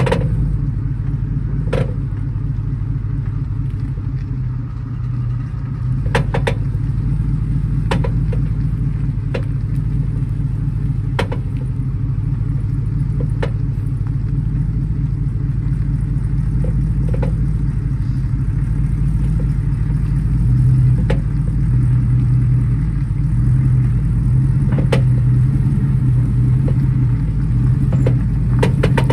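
GMC 1500 pickup's engine pulling under load as it tows a loaded car trailer over a bumpy dirt track, a steady low drone that gets a little louder in the second half. Sharp knocks and clatter come every few seconds as the rig rolls over the bumps.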